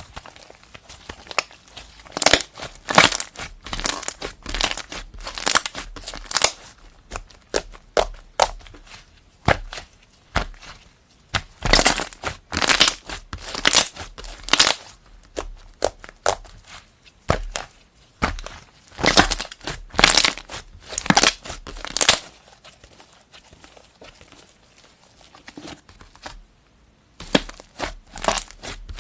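Slime being squeezed and pressed by hand, giving runs of sharp crackling pops with short pauses between them; the popping drops away for a few seconds near the end, then starts again.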